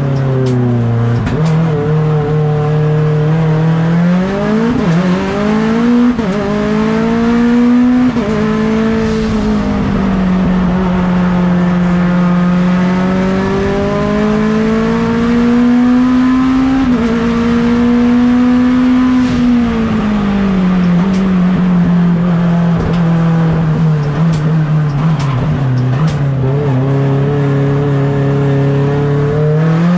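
Mitsubishi Evo X race car's turbocharged 4B11 four-cylinder engine, heard from onboard, running hard under load, its revs rising and falling several times; it holds a steady low note at the start, climbs around five to eight seconds in and again toward the middle, drops back after about twenty seconds and rises again at the end.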